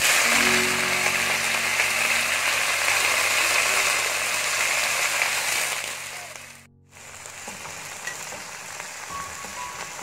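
Wet, freshly washed pumpkin leaf shoots hit hot oil and garlic in a wok and sizzle loudly at once. The sizzle eases after about five seconds and cuts out briefly about two-thirds in. It then carries on more quietly as the leaves wilt.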